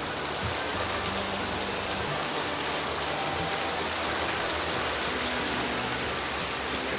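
Steady rain from a typhoon, falling without a break.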